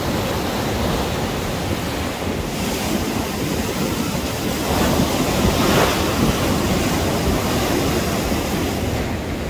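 Ocean surf and wind: a steady rushing noise that swells briefly about five to six seconds in.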